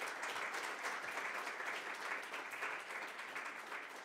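Audience applauding: many people clapping in a steady patter at the end of a speech.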